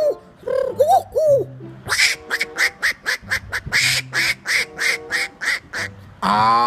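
A man imitating birds with his voice: a few short cooing calls, then a rapid run of quacks, about four a second, and a loud drawn-out call near the end.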